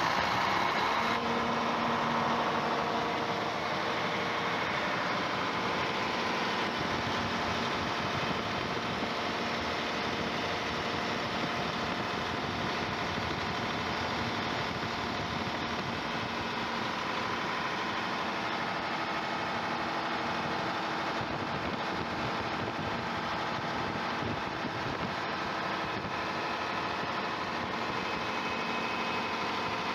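Six-cylinder Volvo Penta diesel engine of a large generator set, converted to run on compressed natural gas, running steadily.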